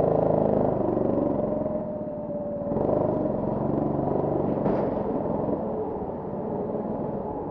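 Petrol rental go-kart engines idling together, a steady mechanical drone with a low pulsing beat, swelling a little just under three seconds in.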